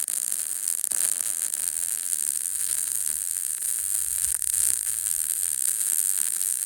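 MIG welding arc from a Harbor Freight Titanium welder laying a bead, a steady crackling sizzle.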